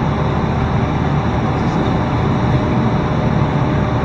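Steady low drone of a ship's engines and deck machinery on the working deck, unbroken throughout.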